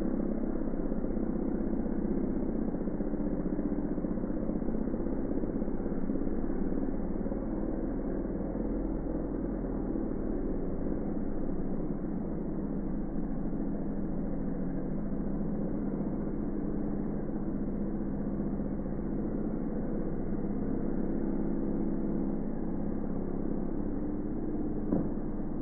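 An engine running steadily at a constant speed, with a single short knock near the end.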